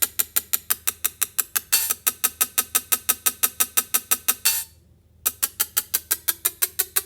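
A fast, even run of sharp percussive clicks, about seven a second, with a short silent break a little before five seconds in.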